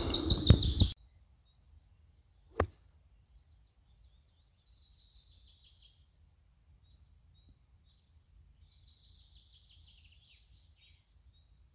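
A single crisp click of a golf club striking the ball on a 70–80 m approach shot, about two and a half seconds in. Faint bird trills follow, twice.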